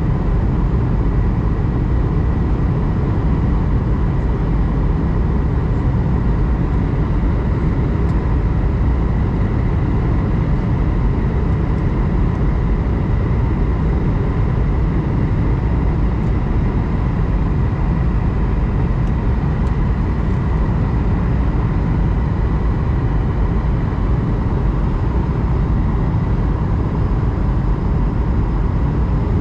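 Cabin noise inside an Airbus A220-100 airliner on approach: a steady rumble of airflow and its Pratt & Whitney PW1500G geared turbofan engines, with a faint steady whine.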